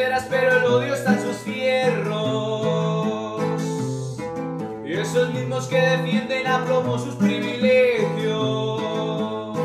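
A man singing in Spanish, with long held notes, over his own bandola, its plucked strings playing a repeating pattern of low notes beneath the voice.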